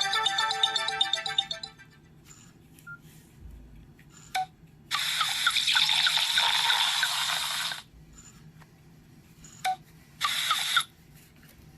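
Nokia 6682 ringtone previews from the phone's speaker. A melodic polyphonic tone fades out in the first two seconds, with a few short blips after it. A hissy, noise-like tone with small repeated chirps plays for about three seconds, cuts off, and starts again briefly for half a second near the end.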